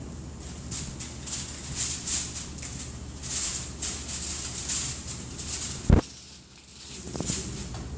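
Irregular rustling and shuffling, with one sharp thump about six seconds in, over a low steady hum.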